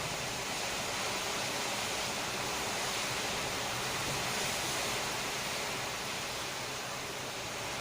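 Steady rushing noise of rough, storm-driven sea and wind during a typhoon, with no separate crashes standing out.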